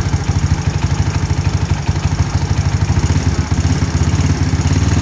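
Yamaha Mio Sporty scooter's single-cylinder four-stroke engine idling with a steady, even pulse. It now keeps running on a richened mixture (screw set half a turn out), where before it was too lean to start.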